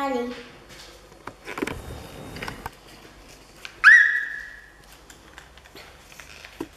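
Light crinkling and rustling of a Kinder egg foil wrapper and paper leaflet being unfolded by hand. A brief, loud, high whistle-like tone comes about four seconds in, sliding quickly up and then fading over about a second.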